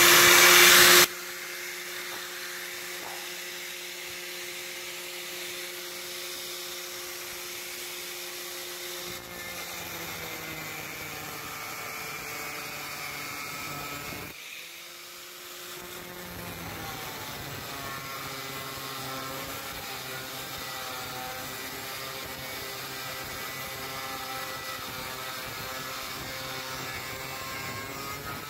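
Electric angle grinder with a cutting disc: a loud burst as it is switched on, then the motor whining steadily at full speed. From about nine seconds in it cuts through steel angle bar, its note dropping and roughening under load, with a brief let-up about halfway.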